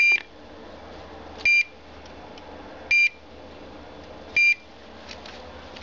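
An НПР low-frequency locator beeping: short, high electronic beeps about one every second and a half. They are its signal that it is picking up the pulsing magnetic field of the ПНТ-00 pipeline-pig transmitter through the steel wall of the pressurised water test stand.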